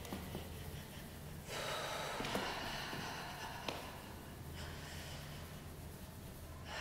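A woman breathing audibly while shaking out her leg: one long breath lasting about three seconds, a second one starting near the end, and a few faint taps.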